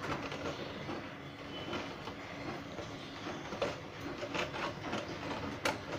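Faint, steady background noise, with a few soft clicks and taps in the second half as syrup-soaked fried bread slices are turned over and set down on a wire-mesh sieve.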